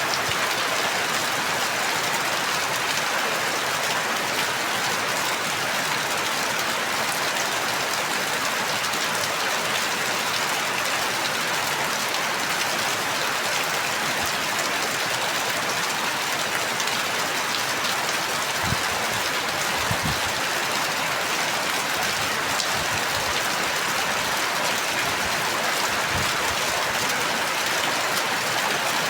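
Steady, dense rain falling, an even hiss without a break. A few soft low thuds come in about two-thirds of the way through and again near the end.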